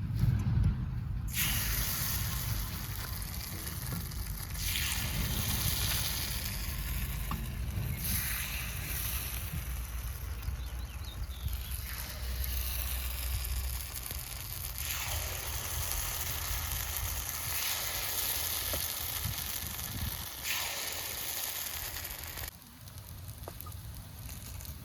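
Hot oil sizzling as batter fries in the hollows of a gunta ponganalu (paniyaram) pan. The sizzle swells in several waves over a low rumble and turns quieter near the end.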